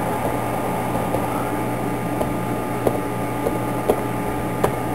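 Laptop keyboard keys clicked one at a time as a password is typed, a handful of light, irregularly spaced taps over a steady mechanical hum.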